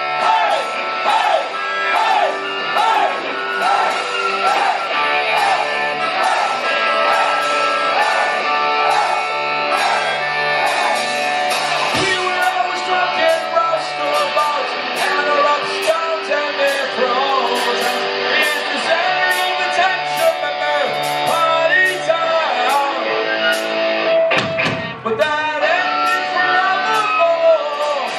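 Punk rock band playing live: a man singing lead vocals into a microphone over electric guitars and drums. The band thins out briefly near the end before coming back in.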